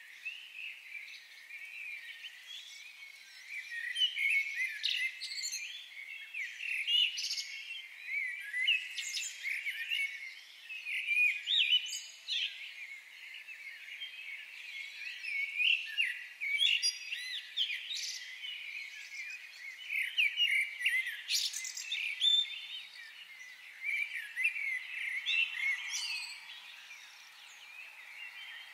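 Many birds chirping and calling at once, a dense chorus of short overlapping chirps.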